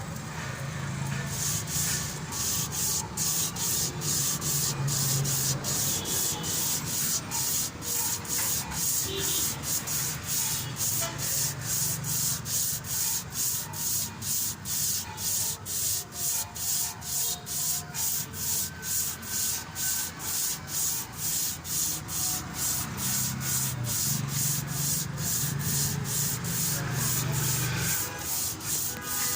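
Rhythmic back-and-forth rubbing of abrasive cloth by hand on a diesel engine's crankshaft journal, about two strokes a second: the crankshaft being polished after bearing damage.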